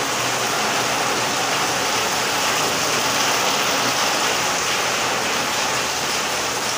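Heavy rain pouring down on a paved courtyard, a steady, dense hiss.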